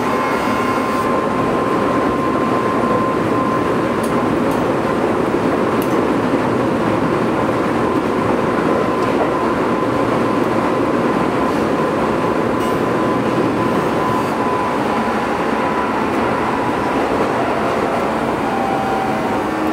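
Keio 8000 series electric train running, heard from above its Hitachi GTO-VVVF inverter: steady wheel-and-rail rolling noise with a thin, steady electric whine from the inverter-driven motors. The whine fades out about twelve seconds in, and a new, lower whine starts near the end.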